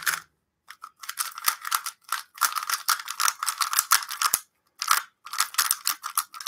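Magnetic 3x3 speedcube being turned fast by hand: rapid plastic clicking and clacking of layer turns in bursts, with short pauses between them.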